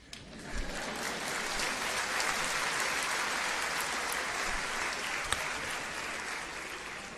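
Large audience applauding. It swells over the first second, holds steady, then tapers off near the end.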